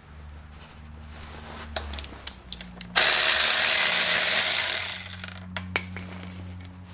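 Husky 12-volt lithium-ion cordless ratchet running in one burst of just under two seconds, about three seconds in, with sharp clicks of the socket and tool being handled before and after it. A low steady hum lies underneath.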